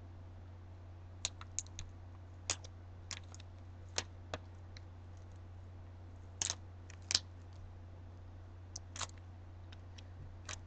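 Faint, irregular light clicks and taps from handling a wine glass and a small paint bottle in gloved hands, over a steady low hum.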